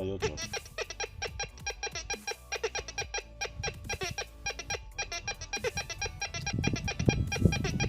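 TX-850 metal detector sounding a rapid stream of short, same-pitched beeps as a small 18-carat gold pendant is passed over its coil, giving the gold's target tone. Low handling thumps come in near the end.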